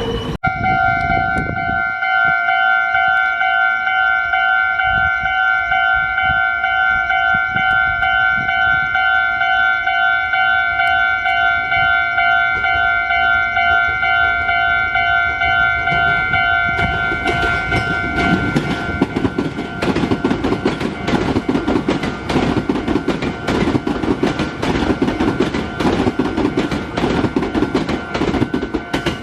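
Level-crossing warning bell sounding a steady electronic tone. From a little past halfway, a train passes over the crossing with rolling wheel noise and the clatter of wheels over the rail joints, while the bell keeps sounding underneath.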